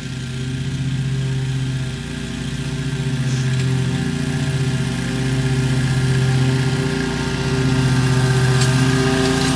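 Wright 36-inch stand-on mower running steadily with its blades cutting tall wet grass. The engine hum grows louder as the mower comes closer.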